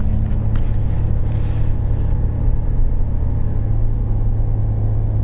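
Coach interior: steady low engine and road rumble with a constant hum. A few faint knocks in the first two seconds.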